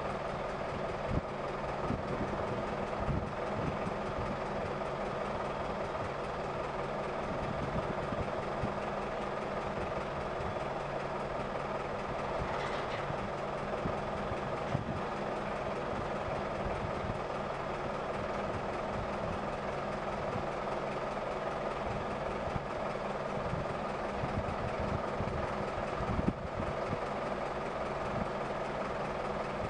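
Mobile crane's heavy diesel engine running steadily at an even speed, with a few scattered low knocks.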